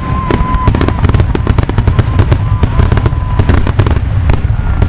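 Fireworks display in a rapid barrage: many sharp bangs and crackles overlapping on a constant low rumble, with a thin whistle in the first second and again around the middle.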